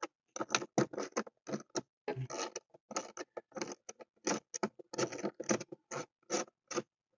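Hand ratchet backing out a dashboard bolt: a short burst of clicking on each return stroke, about three to four strokes a second at an uneven pace.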